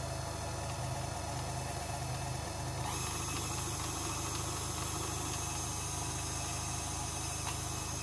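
KitchenAid Classic stand mixer's motor running its pasta roller attachment as a sheet of pasta dough is fed through the steel rollers, a steady whirring hum. The sound turns a little brighter about three seconds in.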